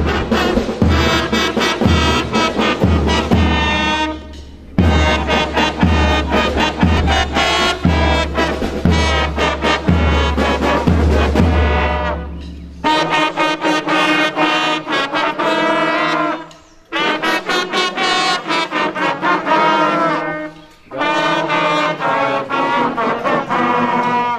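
Brass band playing a tune, with a bass drum beating about twice a second. About halfway through the drum stops and the band plays longer held notes, with short breaks between phrases.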